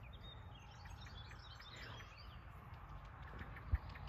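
Small birds chirping and singing over a low steady rumble, with a single dull thump near the end.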